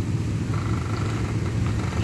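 Vehicle engine running at a steady low idle, an even rumble with a fast throb.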